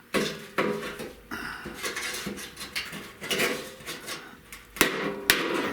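Sheet-steel patch panel being flattened out by hand: irregular sharp metal knocks, the two loudest near the end, with rattling and scraping of the panel between them.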